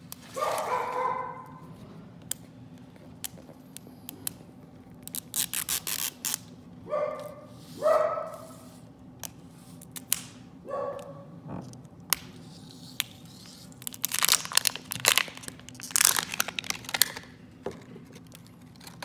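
Plastic wrapping on a toy surprise ball crinkling and tearing as it is peeled off, in crackly bursts that are loudest a few seconds from the end. Three short bark-like sounds come about a second in, about eight seconds in and about eleven seconds in.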